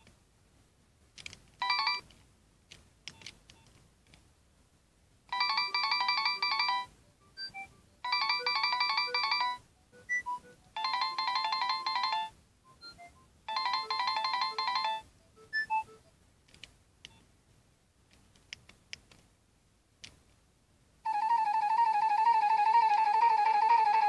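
Nokia 6610i ringtones previewed through the phone's small built-in speaker. A short electronic melody plays four times with pauses between, with faint key clicks in the gaps. About three-quarters of the way in, a different ringtone starts: a steady, held tune with a wavering pitch.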